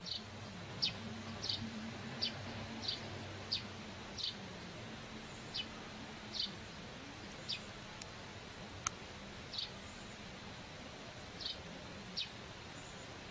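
Short, high chirps repeating irregularly, about once every three-quarters of a second, from an unseen small animal. A faint low hum runs underneath, and two sharp clicks come a little past the middle.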